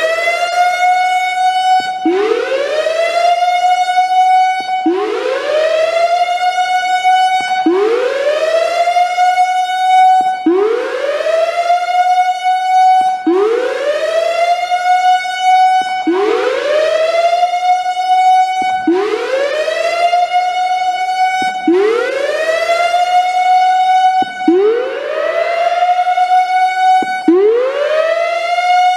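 Whelen WPS-3000 electronic outdoor warning siren sounding a whoop signal: a tone that sweeps quickly upward, holds briefly, cuts off and starts again, about once every three seconds, repeated through the test.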